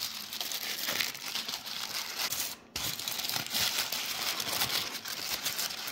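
Small Happy Meal mystery-toy packaging being opened by hand: continuous rustling made of many small crackles, with a brief break about two and a half seconds in.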